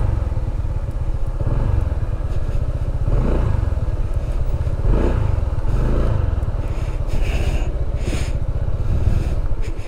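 Honda ADV 160 scooter's single-cylinder engine running under load on rough off-road ground, with several clattering, scraping knocks from the bike along the way.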